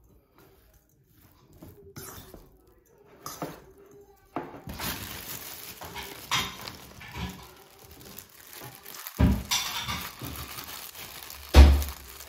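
Dishes and cutlery clinking and knocking on a table during a meal, sparse for the first few seconds and then busier, with two heavier knocks, one around nine seconds in and the loudest near the end.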